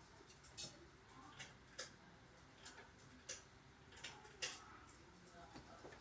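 Faint, scattered clicks and taps, about ten at irregular intervals, from hands handling a running Hunter Mayfair ceiling fan, over near silence.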